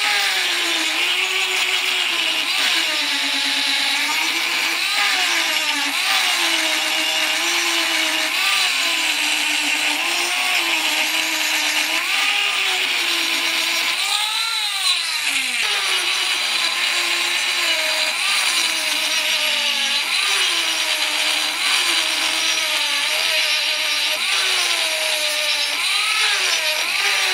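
Electric angle grinder with an abrasive disc grinding rust off a steel meat cleaver blade: a steady high motor whine over the hiss of the disc on the steel. The pitch sags and recovers as the disc is pressed and eased along the blade. About halfway through, the pitch sweeps sharply up and back down as the grinder is lifted clear of the blade, and then the grinding resumes.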